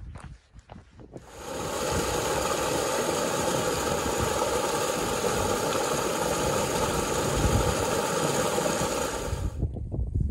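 Small alpine meltwater stream splashing over a low rock ledge, heard close up as a steady rush of water. It starts abruptly about a second in and cuts off just before the end.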